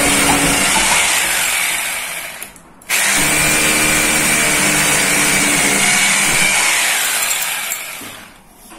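Handheld electric drill boring into a concrete hollow-block wall, run in two bursts with a steady whine: it winds down about two seconds in, starts again a moment later, and dies away again near the end.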